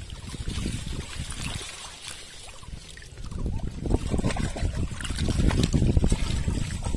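Water sloshing and splashing around a person wading waist-deep among water hyacinth. It grows louder about halfway through as he reaches forward through the water.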